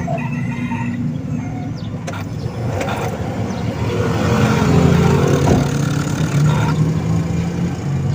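A steady low hum of a running engine with a rough, noisy rattle over it.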